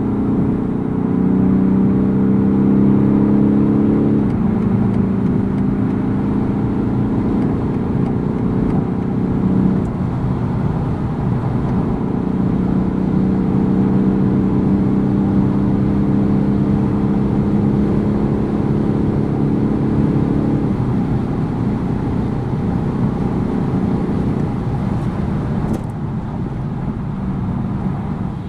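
BMW 420d G22's four-cylinder diesel engine running hard at autobahn speed, a steady engine drone over road and wind noise, its pitch shifting about 4, 10 and 20 seconds in.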